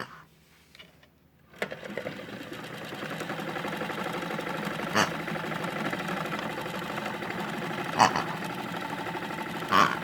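Small electric motor of a toy washing machine switched on with a click, then whirring steadily, with three brief louder sounds over it.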